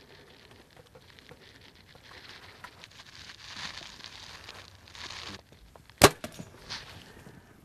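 A bow shot: one sharp, loud snap of the bowstring as the arrow is released, about six seconds in, followed by a few fainter clicks. Before it comes a soft rustling hiss.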